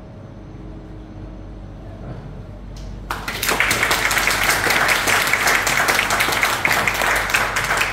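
The final chord of a Young Chang grand piano fades away, then about three seconds in an audience starts applauding, steady and loud.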